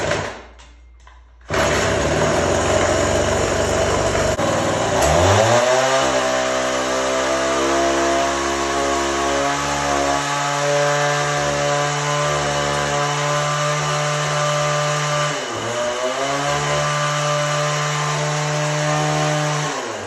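Weed Eater power hoe's small two-stroke engine catches on the starter pull about a second and a half in, its first start after sitting 20 years. It runs briefly, then revs up to spin the tiller tines and holds a steady high speed. It dips once and picks back up, then drops off near the end.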